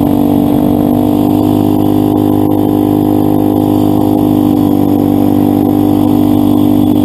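Vehicle engine running steadily at cruising speed, heard from on board: a loud, even hum that holds nearly one pitch.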